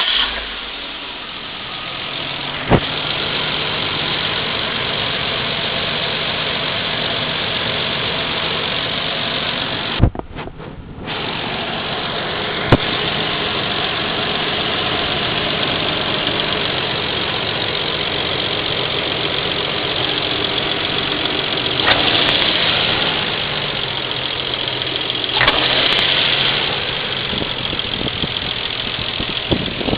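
Nissan Skyline R34's 2.0-litre straight-six running at idle, with a few sharp clicks and two short swells in engine sound in the second half. The owner suspects a misfire: he says the engine rocks around and its revs sag at idle.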